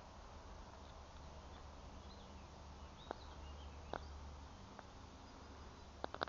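Quiet outdoor ambience: a steady low rumble with faint bird chirps, and a few sharp clicks, one about three seconds in, another a second later, and a quick cluster of three near the end.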